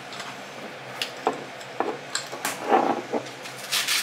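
A plate and a small seasoning bottle being handled on a kitchen counter: a series of short knocks and clinks, with a brief noisy rasp near the end.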